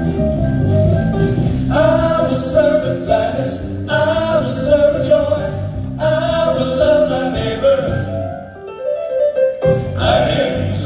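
Southern gospel male quartet singing in close harmony, backed by a live band with piano and drums. The band plays alone for under two seconds before the voices come in, and the singing breaks off briefly about eight seconds in before resuming.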